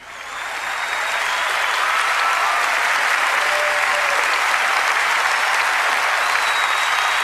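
Large audience applauding steadily, fading in over about the first second.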